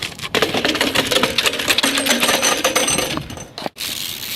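BMX bike's rear hub ratcheting as a rapid, dense run of clicks.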